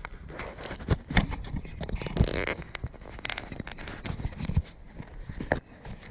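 Irregular footsteps and scrapes on rough, stony ground, with sharp knocks every so often over a low rumble and a longer scuffing noise about two seconds in.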